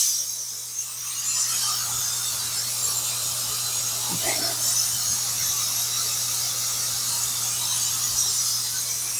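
Ninja Foodi pressure cooker venting steam through its pressure-release valve after a quick release: a steady hiss.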